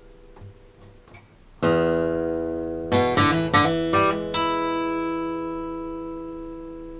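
Bedell Earthsong Orchestra acoustic guitar played solo, with light finger noises on the strings before a full chord is strummed about a second and a half in. A few quick strums follow between three and four seconds in, and the last chord is left to ring and fade slowly.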